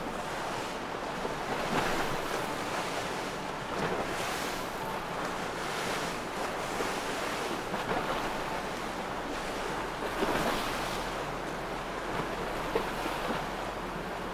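Steady rush of choppy waves and boat spray, with wind noise on the microphone and a few brief louder splashes.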